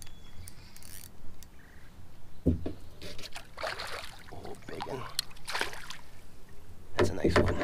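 Hooked smallmouth bass thrashing at the surface beside a kayak, several splashes of water in quick succession as it is played in.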